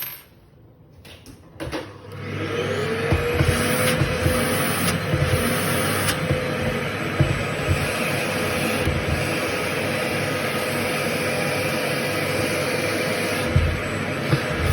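A vacuum cleaner switched on about two seconds in: its motor spins up with a rising whine, then runs steadily, sucking coffee grounds out of a burr coffee grinder with a few sharp ticks of grounds and nozzle.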